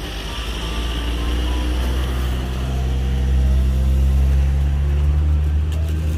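A motor vehicle's engine running close by: a low, steady hum that grows louder over the first few seconds and then holds.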